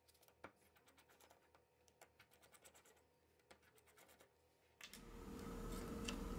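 Near silence broken by a few faint ticks and scrapes of a small screwdriver turning the tiny screws of a smartphone's bottom cover plate. A steady hiss of room noise rises near the end.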